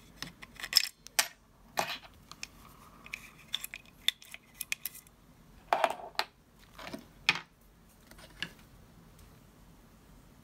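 Small metal parts and tools being handled while fitting a shim into an airsoft rifle's trigger mechanism: scattered light clicks and metallic taps, a few sharper ones about a second in and again around six to seven seconds.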